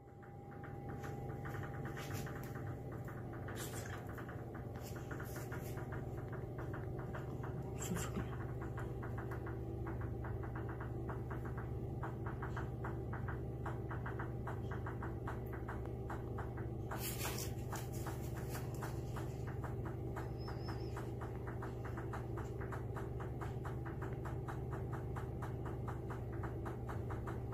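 A steady low machine hum with a fast, even ticking running over it, broken by a few sharp clicks, one longer rattle-like click about two thirds of the way through.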